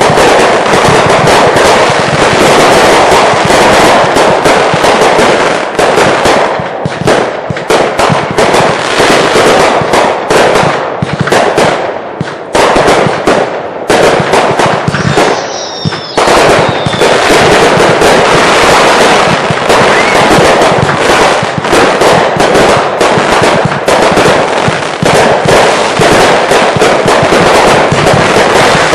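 Consumer fireworks going off in a dense, continuous barrage of bangs and crackling. The barrage thins for a few seconds about halfway through, when a short falling whistle is heard.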